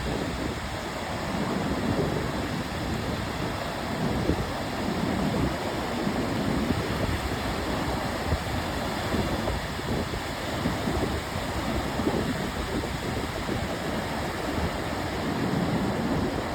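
Ocean surf washing in a steady, continuous hiss, with the low rumble of the waves rising and falling every few seconds.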